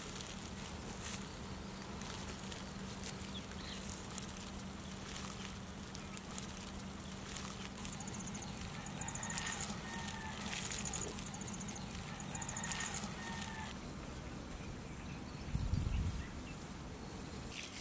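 Rural outdoor ambience: a steady high-pitched buzz throughout, with chickens calling faintly a few times in the middle.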